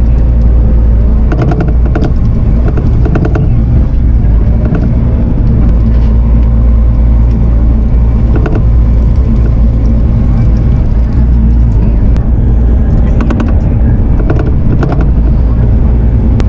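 A heavy-equipment diesel engine running steadily and loud, with short knocks and clanks now and then.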